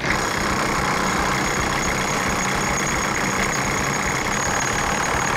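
DeWalt DCF961 cordless half-inch high-torque impact wrench hammering continuously on a bolt torqued to 1750 ft-lb, trying to break it loose. It starts abruptly and runs at an even level, a dense rattle over a steady high whine.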